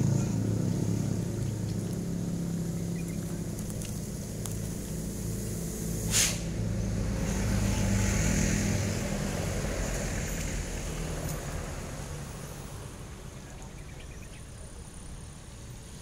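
A motor engine running steadily with a low hum that slowly fades away, and one sharp click about six seconds in.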